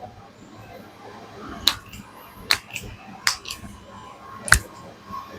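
Joint cracks during a chiropractic adjustment: about six sharp pops at irregular intervals, the loudest about four and a half seconds in.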